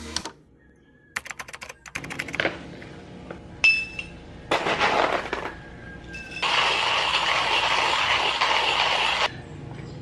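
Coffee gear being handled on a kitchen counter: a quick run of light clicks, a sharp ringing clink of metal or ceramic, then about three seconds of steady rushing noise that stops suddenly near the end.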